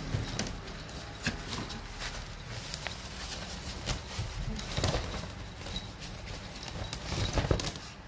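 Nylon pet play tunnel rustling and crinkling as a small dog scrambles on and through it, with many irregular sharp clicks and knocks.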